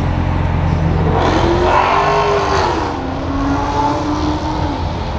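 A car engine running: a low steady hum, then from about a second in a pitch that rises and then falls away over about three seconds.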